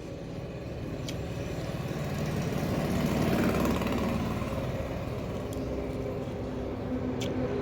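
A motor engine running, growing louder over the first few seconds and then holding steady.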